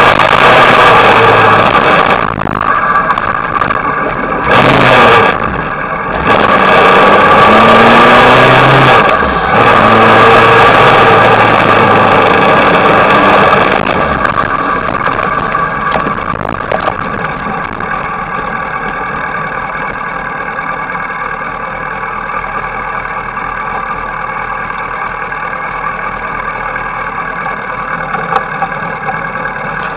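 Sport motorcycle engine under way with heavy wind noise on the microphone, its pitch rising and falling through the gears. About fourteen seconds in the wind noise fades and the engine settles to a quieter, steady running as the bike slows.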